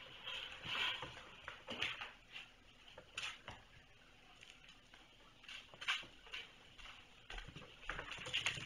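Kittens playing on a rug: soft, irregular pattering and rustling of small paws, with a few light taps.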